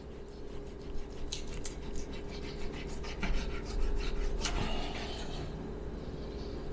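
Chef's knife sawing back and forth through raw pork belly on a cutting board: a quick run of short rasping strokes with light knocks of the blade on the board.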